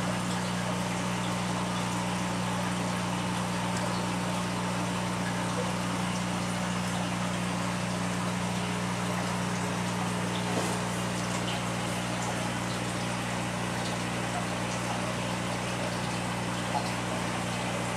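Fish-room aquarium equipment running: a steady low hum from the pumps and filters, with the even hiss of moving, bubbling tank water.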